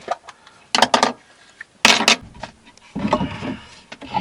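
Sharp knocks and clatter of wooden and metal objects being handled: a quick run of three knocks about a second in, a louder knock about two seconds in, then a stretch of rustling.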